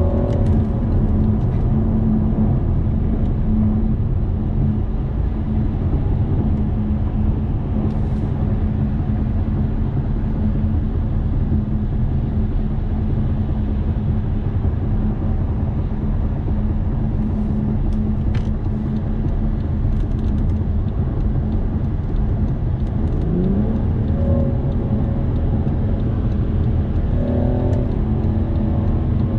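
Cabin sound of a BMW 640d's twin-turbo straight-six diesel at motorway speed: a steady engine drone over heavy road and tyre rumble. The revs climb a couple of times near the end as the eight-speed gearbox shifts down.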